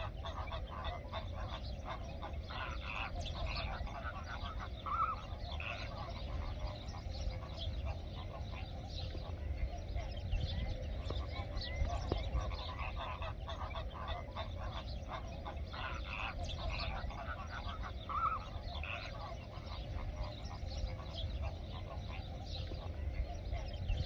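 A large flock of flamingos calling: a dense, continuous chorus of short goose-like honks and gabbling, over a steady low rumble.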